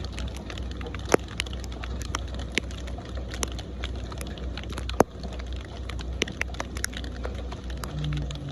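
Rain falling, with many irregular sharp drop hits on a surface over a steady low rumble.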